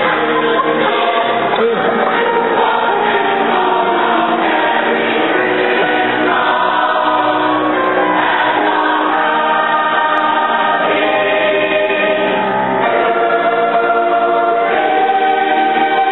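Mixed-voice chamber choir singing in parts, holding chords that shift from one to the next.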